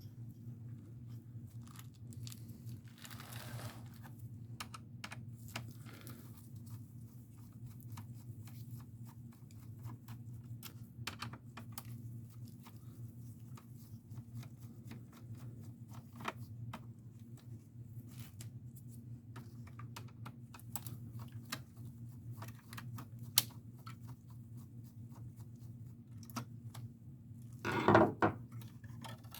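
Scattered small clicks and taps of hands handling the parts of an opened all-in-one computer during disassembly, with a crinkling rustle about three seconds in and a louder rustle near the end, over a steady low hum.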